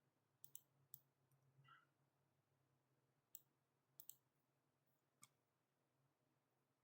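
Faint computer mouse clicks, about seven, spaced irregularly: a quick pair about half a second in, one near one second, one past three seconds, a pair around four seconds and one past five seconds, over a faint low hum.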